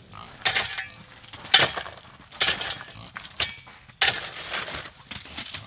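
Ice and icicles being knocked off a snow-laden roof gutter with a long pole: about six sharp, separate knocks as chunks of ice break loose.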